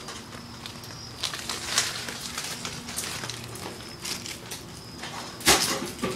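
Footsteps on pavement and rubbing noise from the handheld recorder, with scattered knocks and one loud thump near the end.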